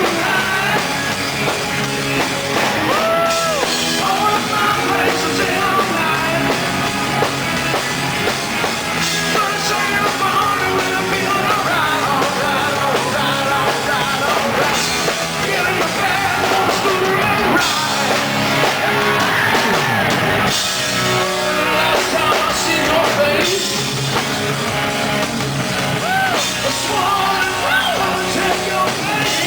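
Hard rock band playing, with drums, guitar and a lead singer.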